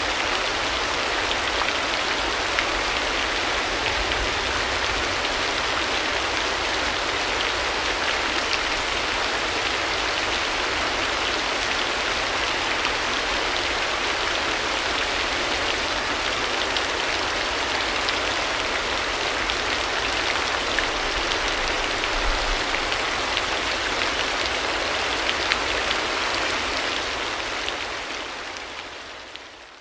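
Steady rain hiss with fine patter, fading out over the last couple of seconds.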